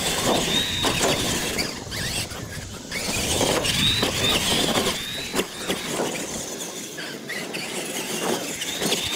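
Electric radio-controlled monster trucks racing on dirt: a high-pitched motor and gear whine that rises and falls with the throttle, over a steady rush of tyre and track noise.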